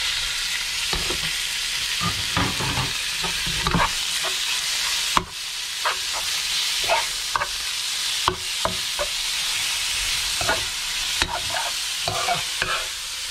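Beef sizzling in hot oil with garlic and chilli, just added to a non-stick wok and stir-fried. A metal spoon scrapes and knocks against the pan again and again over the steady sizzle.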